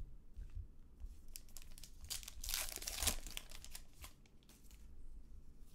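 Baseball trading cards being handled and flipped through by hand: light card clicks, with one papery rasp lasting about a second, starting about two seconds in.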